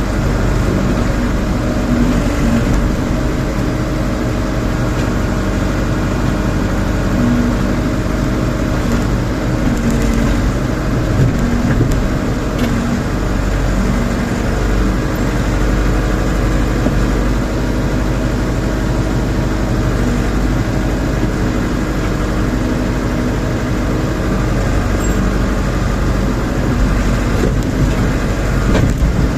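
Backhoe's diesel engine running steadily under work, with slight changes in its note.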